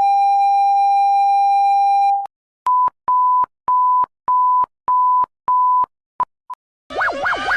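Electronic emergency alert tones: a steady tone for about two seconds, then six short beeps at a slightly higher pitch, evenly spaced about half a second apart, two quick blips, and near the end a fast warbling, siren-like tone starts.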